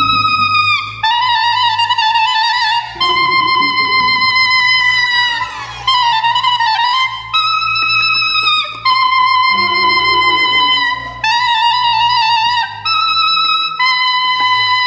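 Soprano saxophone solo in a saxophone concerto, playing long high held notes with short breaks between them; the pitch wavers and bends down and back up about six seconds in. A string orchestra holds a low sustained chord underneath.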